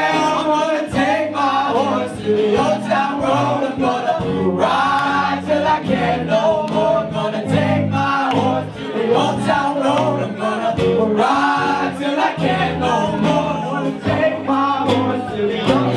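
Live band music with drums and bass, and a crowd singing along loudly in a many-voiced, choir-like chorus.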